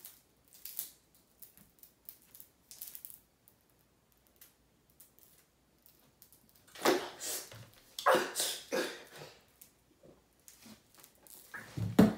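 A person chugging a bottle of carbonated soda: quiet gulps and swallowing clicks at first, then several loud breathy bursts of gasping and coughing as the fizz catches him, the loudest near the end as he lowers the bottle.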